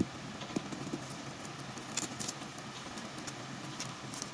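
Cardboard packaging of a wireless microphone kit being handled and opened: soft rustling with a few small clicks and taps.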